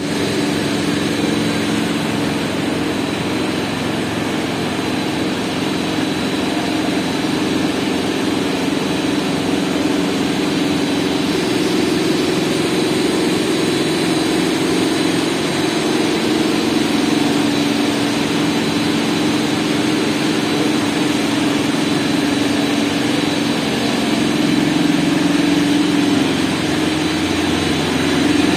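Wastewater treatment plant machinery running, a steady hum over an even rushing noise from pumps and aerated water, without a break.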